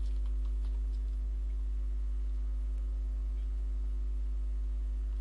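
Steady low electrical mains hum on the recording, with a few faint computer keyboard key clicks in the first second and one more a little after the middle.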